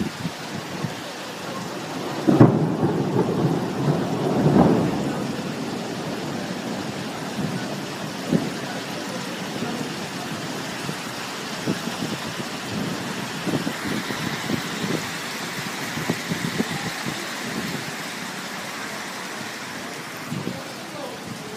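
Hail and heavy rain pelting the street and roofs, a steady hiss dotted with many sharp ticks of hailstones striking hard surfaces. A clap of thunder cracks about two seconds in and rumbles for a few seconds.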